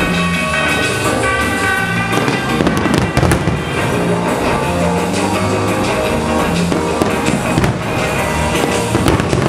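Pyromusical show: music plays throughout while fireworks are fired and burst over it, with clusters of sharp cracks and bangs about a third of the way in and again near the end.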